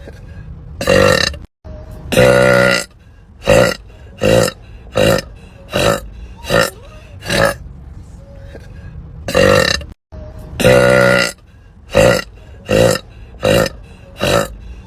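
A woman burping over and over: a quick run of short burps, mostly under half a second each and a little under a second apart, with two longer, drawn-out belches about two seconds in and again about eleven seconds in.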